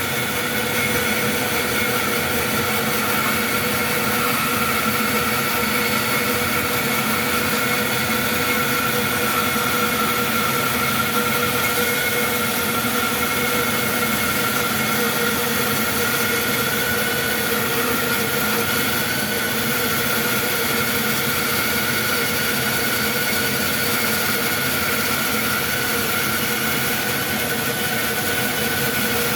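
Powermatic bandsaw running and cutting as it resaws a board of oak: a steady machine whir with a held high whine and hum throughout.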